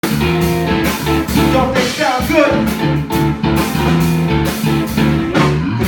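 A live band playing a blues-rock groove with guitar, bass and drums.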